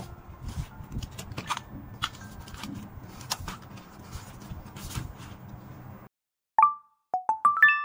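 Snacks being placed into a woven plastic flat-strip rattan basket: light clicks and packaging rustles. About six seconds in it cuts off, then a quick rising run of chime notes rings out.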